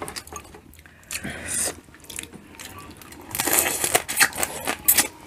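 Close-miked eating: biting into and chewing butter-garlic shrimp, with many small wet mouth clicks and smacks. A louder stretch of biting and crunching comes a little past halfway.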